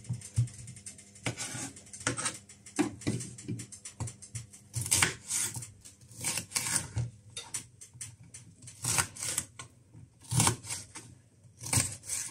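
Chef's knife cutting a red bell pepper on a wooden chopping board: an irregular series of crisp cuts, with the blade knocking on the board.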